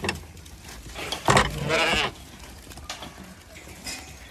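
A Zwartbles ewe bleats once, a wavering call about one and a half seconds in, just after a knock of sheep jostling against the gate. Quieter taps and rustles of the crowding flock follow.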